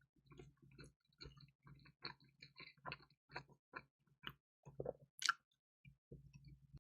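Close-up chewing and biting of crispy pizza: a run of short crunches and wet clicks, with one sharper, louder crackle about five seconds in.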